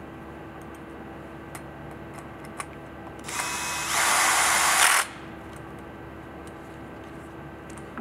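Bosch cordless drill/driver with a 3 mm hex bit running for about a second and a half to drive in and tighten a press brake punch's back bolt. It starts slower, speeds up with a rising whine about half a second later, then cuts off suddenly. A few light clicks of tools on metal come before it.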